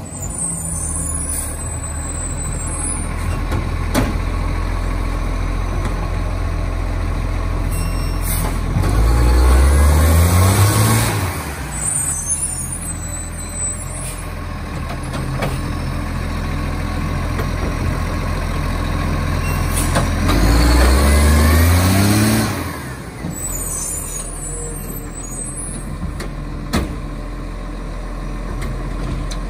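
Diesel engine of a Superior Pak side-loader garbage truck running steadily, with the revs rising twice for a couple of seconds each, about ten and twenty seconds in. A few sharp knocks come in between.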